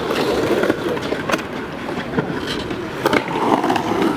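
Skateboard wheels rolling over concrete, a steady rumble with a few sharp clicks along the way.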